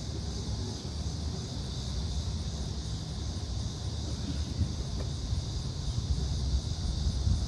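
Steady outdoor background: a low rumble under a constant high hiss, with no distinct tool strikes or clicks.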